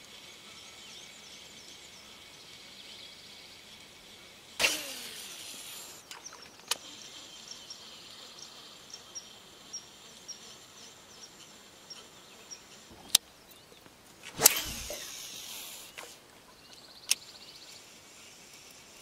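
Fishing rod being cast twice: each time a sudden swish with line running off the reel, fading over about a second and a half, with a few sharp reel clicks in between. Small birds chirp faintly in the background.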